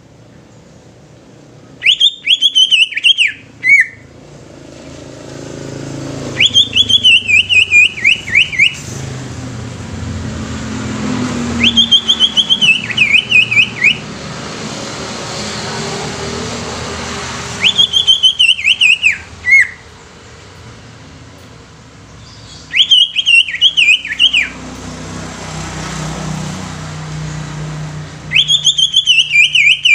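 Male cucak ijo (green leafbird) singing: six loud phrases of rapid warbling notes, each about two seconds long and falling in pitch, coming about every five seconds. Between phrases, a low rumble of passing traffic rises and fades.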